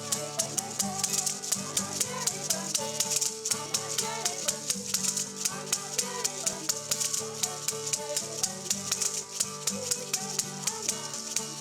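Music carried by a steady shaker or maraca beat, about four strokes a second, under a shifting melody line.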